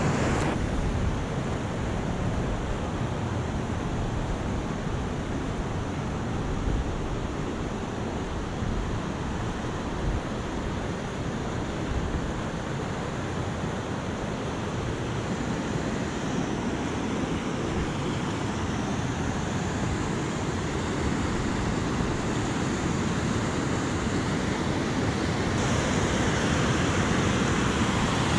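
River water rushing steadily over a rock shoal and through rapids, with some wind rumble on the microphone.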